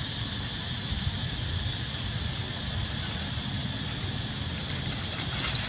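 Steady outdoor ambience of wind rumble on the microphone and a constant high hiss; about five seconds in, a short spell of crackling as dry fallen leaves are disturbed under the monkeys.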